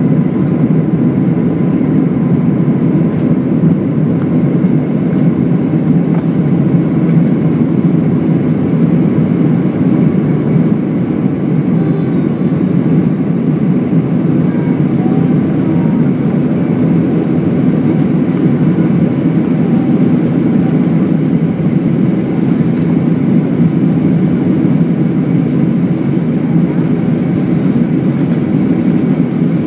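Steady low roar inside the cabin of an Airbus A319 climbing after take-off: jet engine and airflow noise heard from a window seat over the wing.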